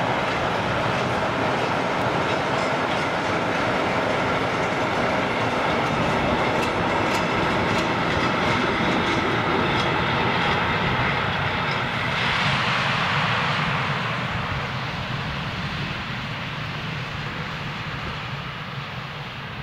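Freight train of loaded container flat wagons rolling past, a steady noise of wheels running on the rails with a few clicks over the rail joints. The sound begins to fade about two-thirds of the way through as the end of the train passes and it draws away.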